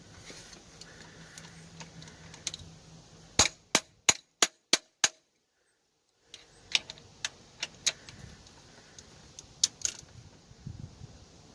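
Ratchet with extension and a cap-type oil filter wrench clicking and clacking as it is worked on a tight oil filter. It starts with a quick run of about six sharp metallic clicks, and after a short dead gap come more scattered clicks.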